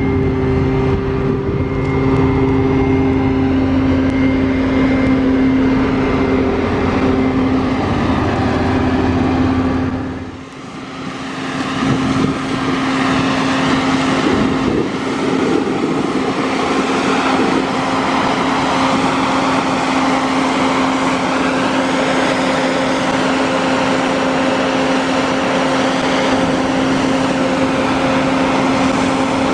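Combine harvester running steadily at work, its engine and threshing gear giving a constant drone with a held whine. About ten seconds in the sound briefly dips; afterwards the deep rumble drops away and the steady whine carries on.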